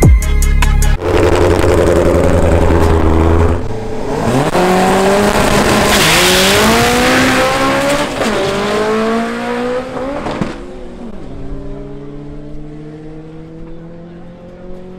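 Two drag-racing cars launching down a drag strip, engines revving up through several gear changes with the pitch dropping at each shift, then fading as the cars pull away down the track. Music plays briefly at the very start.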